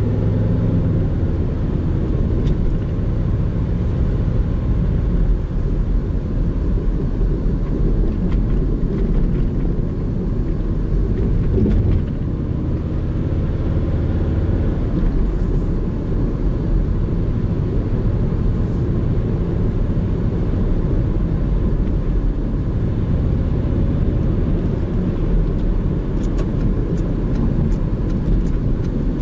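Steady in-cabin driving noise of a Subaru Legacy BH5 wagon (2.0-litre flat-four) cruising: low engine hum mixed with tyre and road rumble.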